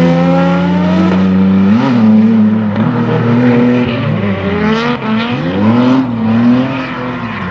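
BMW E36 drift cars' engines revving hard at high rpm as the cars slide, the pitch dipping and climbing again several times as the throttle is lifted and reapplied, over the noise of tyres spinning in a drift.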